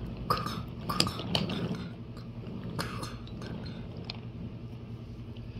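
Toy train cars rolling along a wooden track: several sharp clicks and clacks in the first three seconds, then fewer, over a low steady hum.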